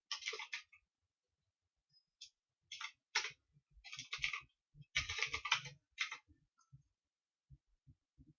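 Clicking and tapping of a computer mouse and keyboard, in quick clusters of sharp clicks with short pauses between, fading to a few soft low taps near the end.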